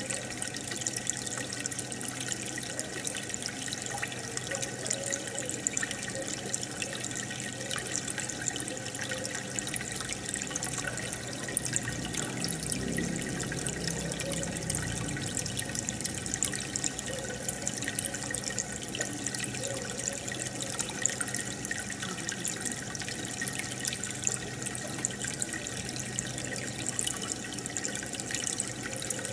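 Aquarium water bubbling and trickling steadily, with a fine crackle of popping bubbles and a low steady hum underneath.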